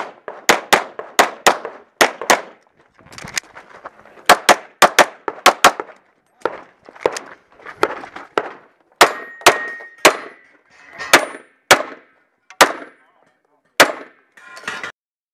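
Semi-automatic pistol fired rapidly in a string of shots, many in quick pairs with short pauses between groups, with the ringing clang of steel targets being hit.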